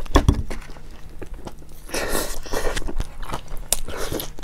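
A bite into a hot dog in a bun, loud and sudden right at the start, followed by crunching and chewing, with another sharp crunchy bite near the end.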